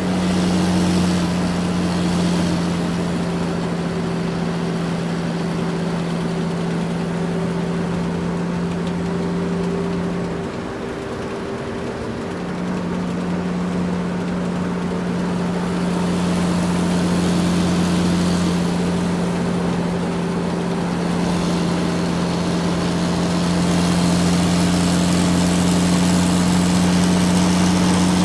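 Excavator's motor running with a steady hum, which drops out briefly about ten seconds in and then resumes.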